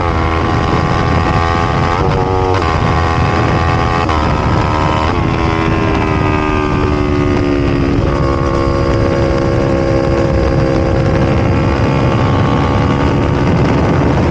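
Kawasaki Ninja 500 parallel-twin engine running hard under load. Its pitch jumps several times in the first half, at gear changes, then holds a steadier note that drifts slowly.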